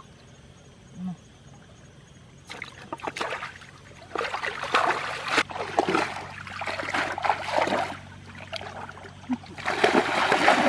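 Shallow muddy water splashing and sloshing as people wade through it and plunge a bamboo fish trap down into it. It starts a couple of seconds in, comes in uneven bursts, and is loudest near the end while they wade.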